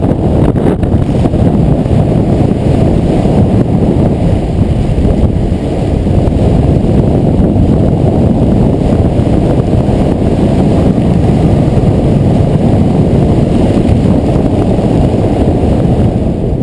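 Loud, steady wind rush buffeting the microphone of a body-mounted camera during a fast descent under a canopy: a dense low rumble with no engine tone.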